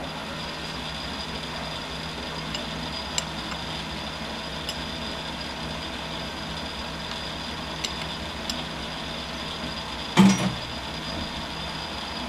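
Smithy Granite lathe running steadily, its spindle and chuck turning a steel workpiece, with a low hum, a thin high whine and a few light ticks. A short thump about ten seconds in.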